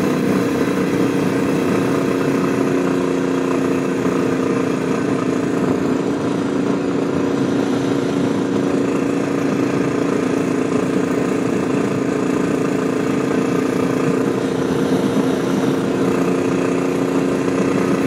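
Royal Enfield Classic 350's single-cylinder engine running steadily at cruising speed, heard through a helmet mic with wind rushing past.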